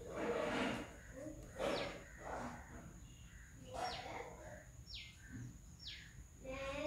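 A bird repeating a short call that falls steeply in pitch, four times, roughly a second apart.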